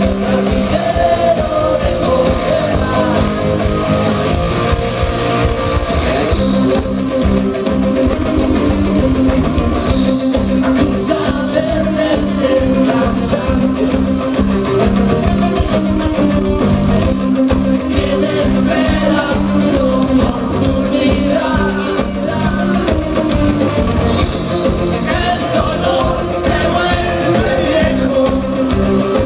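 A rock band playing live with a singer: a loud, steady full-band song with guitar and drums, the vocal line coming and going over it.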